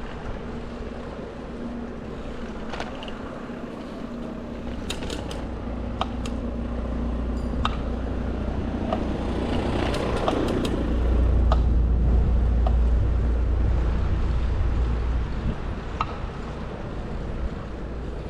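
City street noise: a steady low traffic rumble that swells as a vehicle passes, loudest about ten to fifteen seconds in, with a few scattered clicks.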